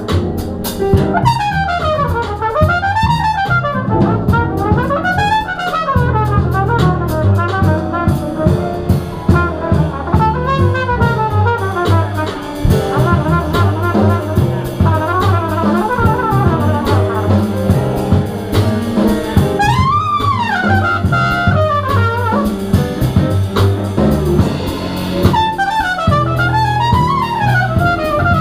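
Live big-band jazz: a trumpet solo of quick runs sweeping up and down in pitch, over double bass and drum kit.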